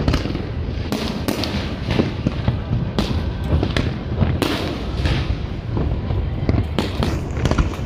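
Aerial fireworks shells bursting in an irregular, rapid series of bangs, at times several a second, over a continuous low rumble.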